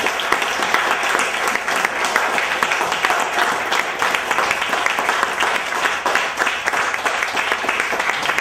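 A small audience applauding: many hands clapping in a dense, steady patter.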